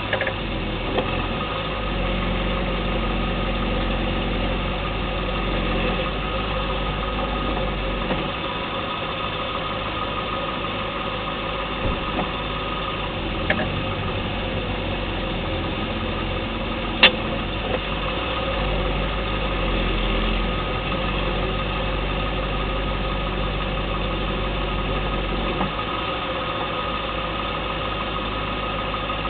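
Steady running of a 2010 Lexus LS 460L's V8 engine, with a few sharp clicks from the car; the loudest comes about 17 seconds in. The clicks are the suspension noise that the owner suspects is coming from the lower control arm or the steering knuckle.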